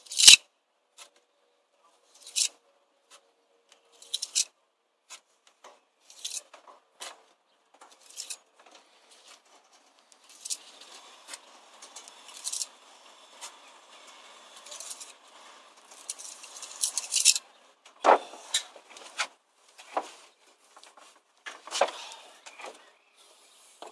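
Steel pointing trowel scraping along fresh mortar joints in brickwork: short, sharp scrapes every second or two, with a softer continuous rubbing in the middle and fuller strokes near the end.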